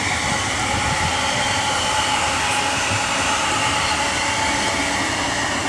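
A train running past, a steady rumble with a faint high whine held at one pitch.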